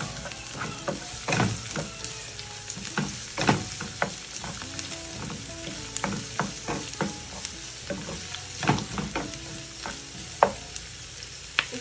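Sliced onion and green chilies sizzling in hot oil in a non-stick pan, stirred with a wooden spatula that clacks and scrapes against the pan at irregular intervals.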